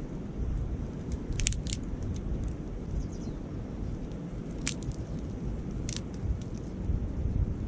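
Campfire of foraged wood crackling, with a few sharp snaps about a second and a half, five and six seconds in, over a steady low rumble of wind on the microphone.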